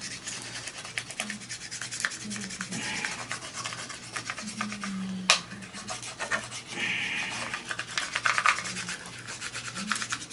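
Hand rubbing and pressing adhesive chassis protector film down onto an RC car chassis, a continuous scratchy rubbing that smooths out air bubbles, with one sharp click about five seconds in.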